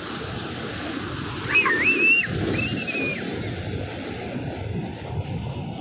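Sea surf washing and breaking onto a sandy beach, a steady rushing noise. About one and a half seconds in come two high, wavering cries one after the other, the loudest sounds here.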